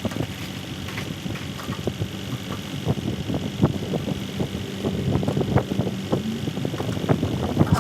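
An engine idling steadily, with many short knocks and clanks over it.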